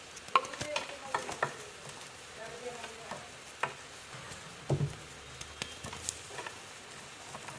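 Gym chalk reforms being crushed and crumbled, giving sharp dry crackles and crunches: a dense run of them in the first second and a half, scattered ones after, and a louder, fuller crunch just before the five-second mark.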